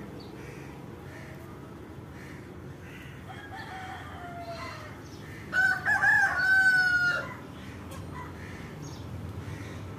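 A rooster crows about five and a half seconds in, one long call of nearly two seconds that ends on a held, slightly falling note; it is the loudest sound. A fainter, falling call comes about two seconds before it.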